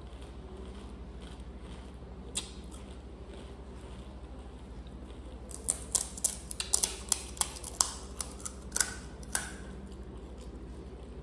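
Close-up crunching and cracking of crisp pani puri snacks. There is a single crunch about two seconds in, then a rapid run of sharp, crisp snaps for about four seconds. A steady low hum lies underneath.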